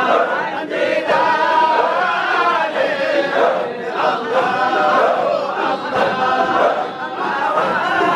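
A large crowd of men chanting together in a Sufi dhikr (hadhara), in loud, rhythmic repeated phrases.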